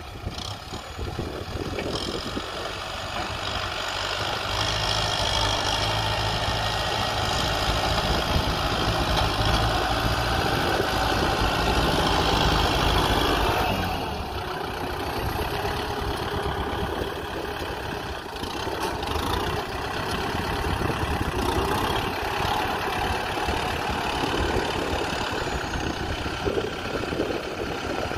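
Kubota M6040 tractor's four-cylinder diesel engine running steadily under load as it works the soil with its front blade. It grows a little louder a few seconds in and eases back about halfway through.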